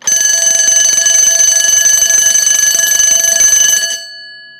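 Mircom BL-6 fire alarm bell, a 24 V DC bell run here at 27 V DC, ringing loudly and continuously with its hammer striking the gong rapidly. It is switched off about four seconds in, and the gong rings on, fading.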